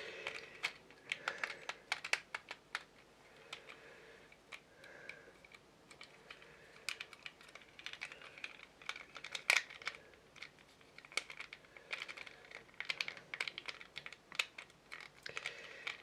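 Irregular light clicks and taps of small plastic model-kit parts being handled and pressed together.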